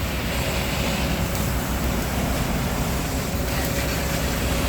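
Ready-mix concrete truck's diesel engine running steadily, with a steady rushing hiss of water as the truck's chutes are washed down.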